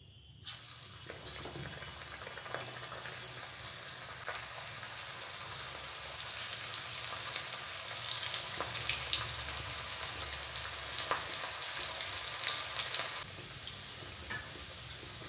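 Gram-flour batter pakoras of cabbage and onion deep-frying in hot oil in a kadhai: a steady sizzle with many small crackling pops. It starts about half a second in as the first batter hits the oil and grows louder about eight seconds in as more pakoras go in.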